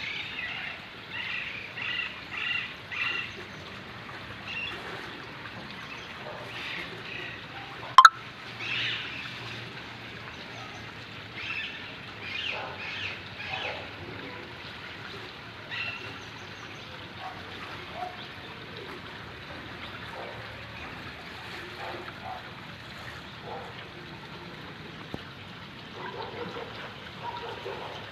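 Small birds chirping in bursts of quick repeated calls, busiest in the first few seconds and scattered after, over a steady soft hiss. A single sharp click about eight seconds in is the loudest sound.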